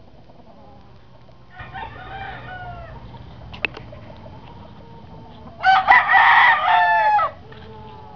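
Rooster crowing twice: a fainter crow about two seconds in, then a loud crow of about a second and a half near the end. A single sharp click falls between the two crows.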